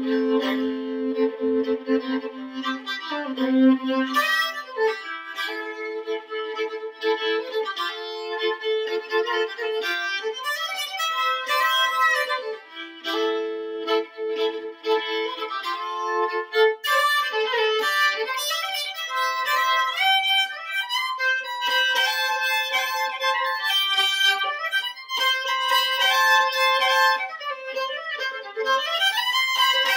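Solo fiddle playing a tune unaccompanied, bowing steadily with two strings often sounding together.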